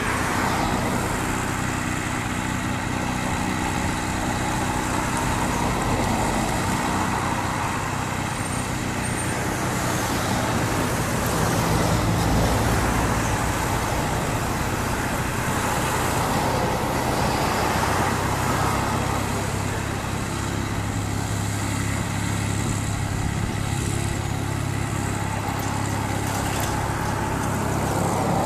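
Cessna U206G Stationair's air-cooled flat-six piston engine and propeller running steadily at low power as the plane taxis, with a low drone that grows a little stronger about halfway through.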